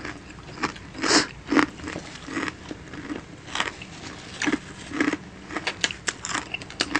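Close-miked eating: irregular chewing and biting as adobo chicken feet are gnawed, with a few louder bites.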